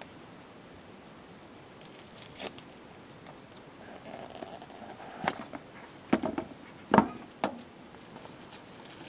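Handling noises of a smartphone and its packaging: a short rustle, then several sharp clicks and knocks, the loudest about seven seconds in.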